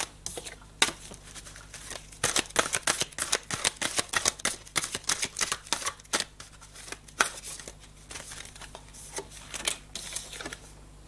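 A deck of oracle cards being shuffled and handled: a quick run of soft clicks and riffles, thickest in the first half and thinning out to scattered clicks toward the end.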